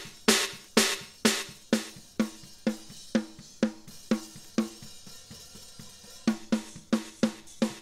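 Drum kit playing back, with a snare hitting about twice a second. From about two seconds in the snare hits fade down, and about six seconds in they come back loud, as the layered Battery 4 replacement snare is faded out and brought back up.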